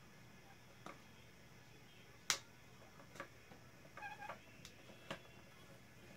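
Plastic interlocking building-block panels clicking as they are pressed together: a few sparse, sharp clicks, the loudest about two seconds in, and a brief pitched squeak about four seconds in.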